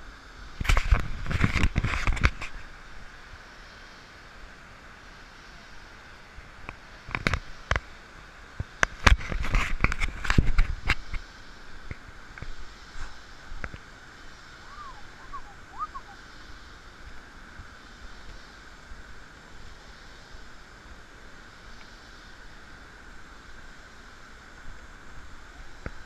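Two bursts of loud crackling and rustling close to the microphone, one at the start and one about seven to eleven seconds in, over a steady hiss of rainforest background. A few short faint chirps come about halfway through.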